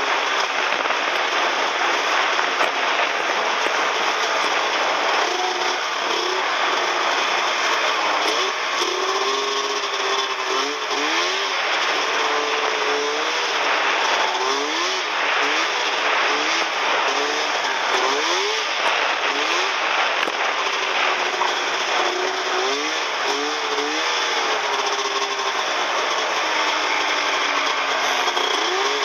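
Snowmobile engine running under way, its pitch rising and falling again and again as the throttle is opened and eased, over a steady rushing noise.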